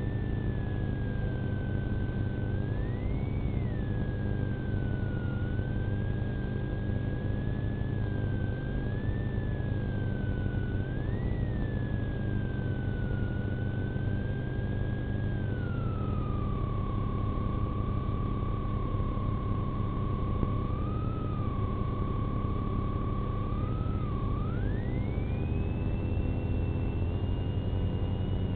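Police car running, with a steady low engine and road rumble. Over it a single high whine glides slowly and unevenly up and down, settles lower past the middle, and climbs sharply near the end.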